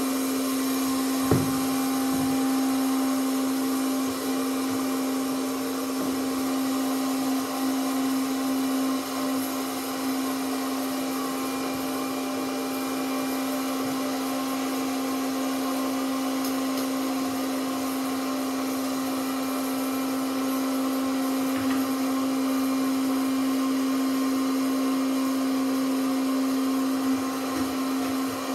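Small electric popcorn machine running, its fan giving a steady whir with a constant hum while it heats the kernels.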